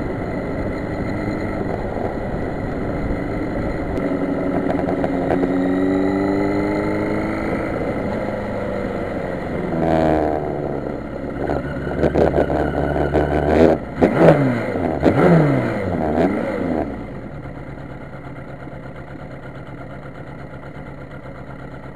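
Sport motorcycle engine under way, climbing in pitch as it pulls through a gear, then a stretch of quick revs and gear changes as it slows, settling to a steady idle for the last few seconds.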